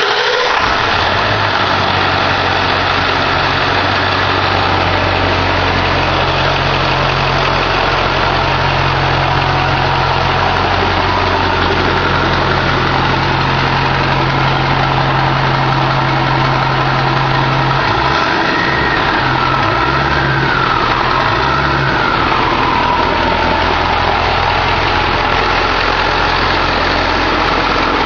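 Ford 7.3L Power Stroke turbo-diesel V8 idling steadily, freshly started. About eighteen seconds in, the note wavers for a few seconds while a whine falls in pitch, then it settles back to a steady idle.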